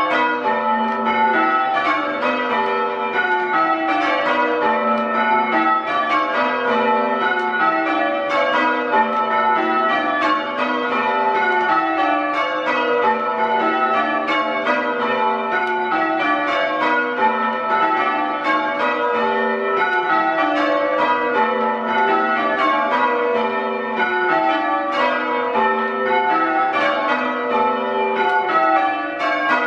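A ring of six church bells being rung full-circle in change ringing. The even runs of strikes step down in pitch from treble to tenor and repeat steadily. The bells are very loud, as they are in the ringing room just below them.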